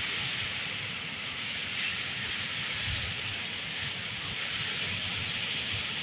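Strong storm wind rushing through trees in a steady hiss, with wind rumbling on the microphone.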